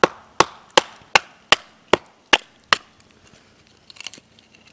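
A knife being batoned through a small piece of wood on a stump to split kindling: eight sharp wooden knocks, about 0.4 s apart, then a brief crackle as the wood splits apart about four seconds in.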